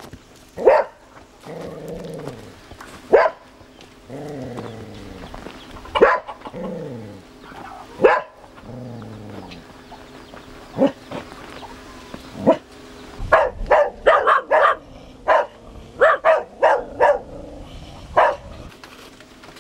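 A dog barking: single barks a few seconds apart, then a quick run of barks about two-thirds of the way through.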